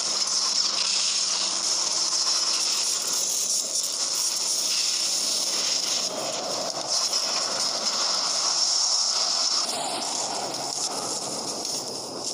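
Steady, loud rushing hiss of a magic-spell sound effect, with a faint low hum under it for the first few seconds.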